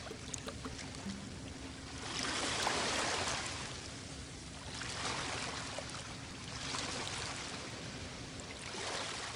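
Ocean surf: waves washing in and drawing back, the hiss swelling and ebbing about every two to three seconds.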